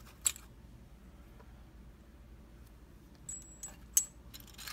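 Small metal padlock parts and tools clicking during disassembly of the lock: a sharp click just after the start, a short high ring a little past three seconds, and a louder sharp click about four seconds in.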